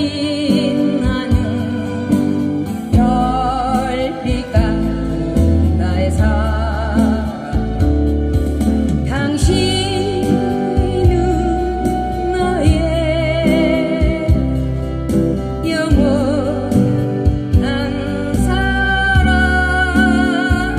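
A woman singing a slow song with vibrato into a microphone, accompanied by strummed acoustic guitars and a low bass line, all played through a PA speaker.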